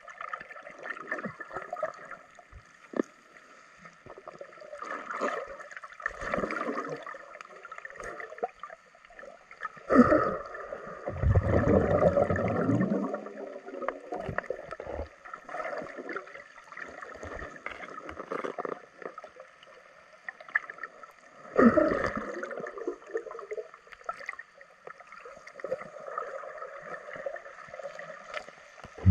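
Muffled underwater water noise heard through a camera's waterproof housing: sloshing and gurgling, with sudden louder surges about ten and twenty-two seconds in, the first trailing off into a low rumble.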